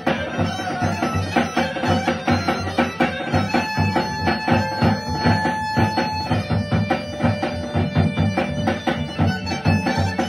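Bulgarian folk band playing live: gaida bagpipe and clarinet carrying the tune over accordion and a tapan drum. A fast, steady drum beat runs under it, and the melody holds long notes from about the middle on.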